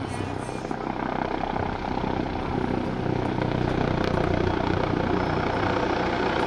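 Agusta A129 Mangusta attack helicopter in flight: the steady thrum of its rotor and engines, growing a little louder about halfway through.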